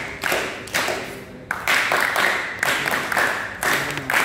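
A group of people clapping together in a steady rhythm, about two claps a second, each clap echoing briefly.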